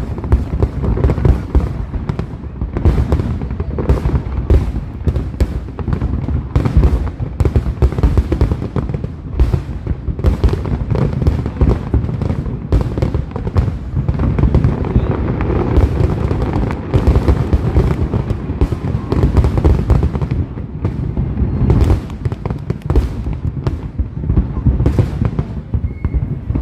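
Fireworks going off in rapid, continuous succession: many sharp bangs and crackles packed closely together, with deep low booms underneath.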